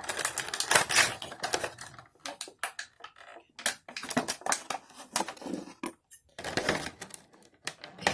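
Plastic action-figure parts and packaging being handled: irregular clicks, taps and rattles as an accessory sword is worked free and fitted.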